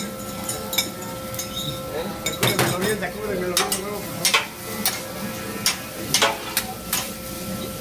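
Two metal spatulas scraping and clicking against a flat-top griddle, with irregular sharp taps, as eggs fry and sizzle underneath.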